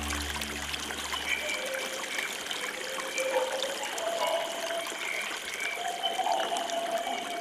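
River water trickling and running in a steady, even rush. A low musical drone fades out about a second and a half in, and short tonal sounds come and go over the water.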